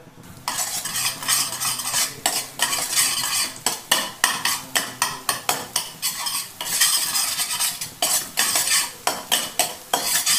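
Metal spatula scraping against a metal kadai in quick repeated strokes, scrambling beaten eggs in sizzling oil. The scraping starts about half a second in.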